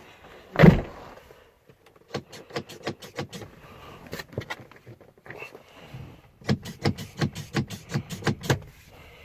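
Car door shutting with one heavy thud, then two runs of quick plastic clicks and rattles from the inside door handle and lock being worked over and over. The handle's broken cable clip means the pulls don't open the door.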